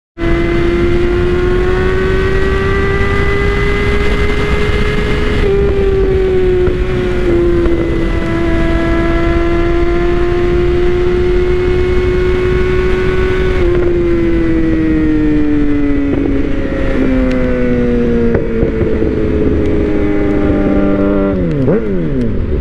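Suzuki GSX-R sportbike's inline-four engine heard from the rider's seat while riding, with wind noise. The engine note holds fairly steady with a few small steps down, then falls over the last several seconds as the bike slows, ending in a quick drop.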